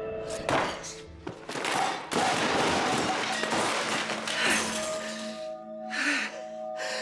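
Dramatic music with a loud, noisy crash lasting a couple of seconds, followed by short, heavy gasping breaths.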